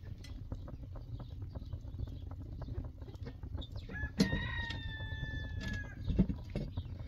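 Wood fire crackling in irregular sharp snaps over a low rumble. About four seconds in a rooster crows once, a held call of about a second and a half that falls slightly at the end, and a dull thump follows near the end.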